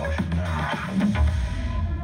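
Electronic music with a heavy bass line; near the end the beat thins out into a held synth chord.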